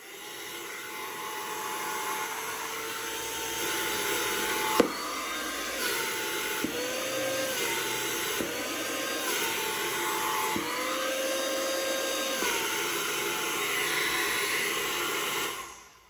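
Homemade 12 V PVC vacuum cleaner, an RS380 motor spinning a hair-dryer fan, switched on and running with a steady whine. About five seconds in there is a sharp click. The pitch then steps up and drops back four times as a foam sheet covers and uncovers the nozzle, and the motor is switched off near the end.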